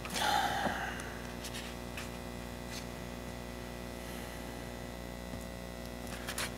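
Steady electrical mains hum under quiet room tone, with a brief louder noise in the first second and a few faint clicks.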